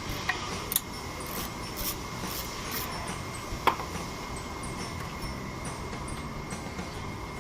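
Toyota Yaris engine idling steadily, in a car being checked for a rough idle, with a few light metallic clinks in the first few seconds and one sharper click just before the middle.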